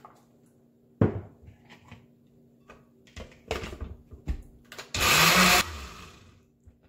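Countertop blender running in one short, loud spell about five seconds in, puréeing chopped onion, tomato, pepper, garlic and cilantro with a little water for a refrito. Before it come a sharp knock and a few smaller knocks as a glass and the blender's plastic lid are handled on the counter.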